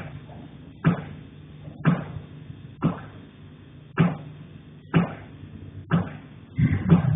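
Knocking heard through the ceiling from the attic: dull thuds about once a second, with a quicker run of several thuds near the end.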